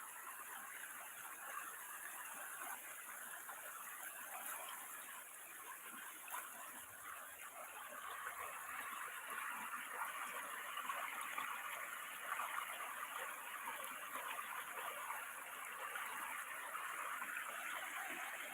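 Water flowing over a small weir: a steady rushing hiss that grows a little fuller and louder about eight seconds in.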